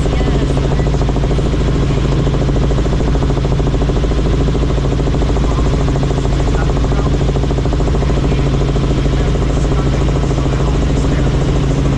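Helicopter in flight: loud, steady engine and rotor noise with a fast, even blade chop.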